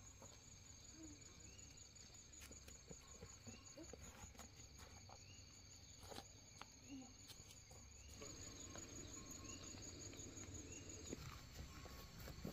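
Faint insect trilling: a high-pitched, evenly pulsed chirp that stops near the end, with a few soft clicks.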